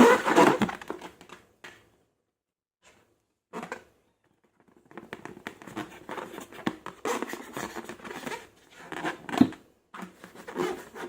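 Slime being squeezed and stretched by hand, making crackly, crinkly squishing noises. The noise fades out in the first second or two, a short burst comes at about three and a half seconds, and dense crackling picks up from about five seconds in.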